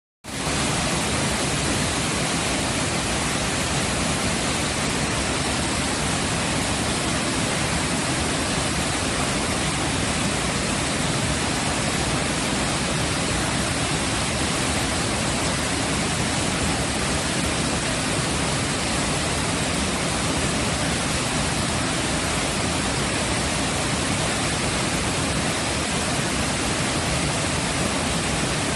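Mitsu-daki waterfall pouring: a steady, unbroken rush of falling water.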